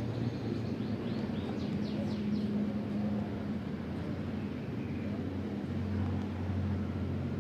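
A steady low hum, with a run of quick, falling high chirps in the first two seconds.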